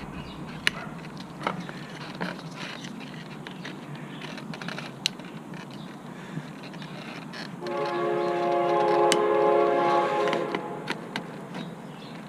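Train horn sounding a steady multi-note chord for about three seconds, starting a little past halfway, over the low noise of a passing train. A few sharp clicks sound earlier.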